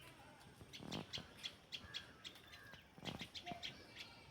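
Small birds chirping in two quick runs of short, high chirps, one about a second in and another near the end. Two soft low thumps come about a second in and again around three seconds.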